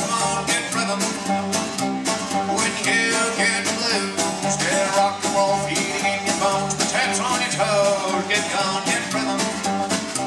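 Live country/rockabilly band playing an upbeat tune: acoustic guitar strumming, upright double bass and a drum kit keeping a steady, fast beat.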